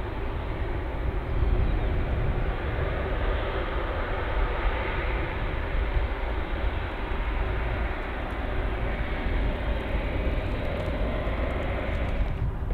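Airbus A330-300 with Rolls-Royce Trent 700 engines taxiing, a steady jet engine rumble with a faint constant hum through it.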